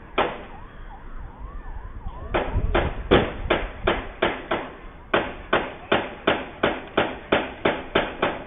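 Rapid hammering on aluminium scaffolding: one blow near the start, then sharp strikes about three a second with a short pause halfway through.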